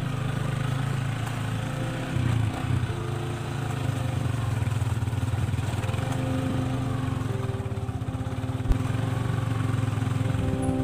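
A motor vehicle's engine running at a steady speed while travelling.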